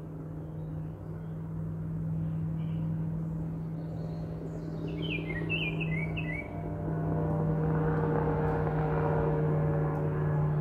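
A bird chirps a quick run of short descending notes about halfway through, over a steady low hum that grows louder in the last few seconds.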